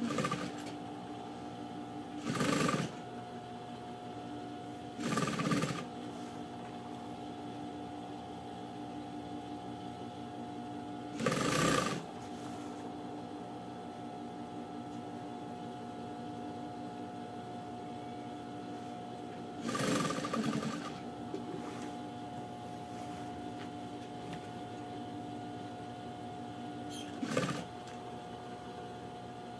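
Sewing machine stitching through strips of knit fabric in six short runs, each lasting half a second to a second, over a steady hum.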